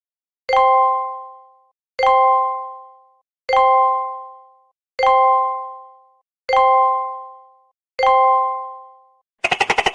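A bell-like chime struck six times, evenly about every second and a half, each note ringing out and fading over about a second. Just before the end comes a short, fast rattle of clicks.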